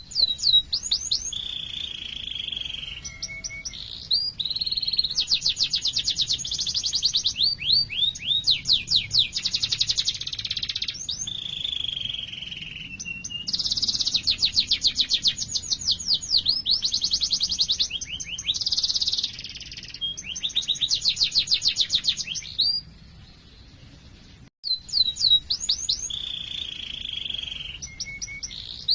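Domestic canary singing a long, loud song of fast rolling trills and sweeping whistled notes. The song breaks off about 23 seconds in, then starts again a second or two later.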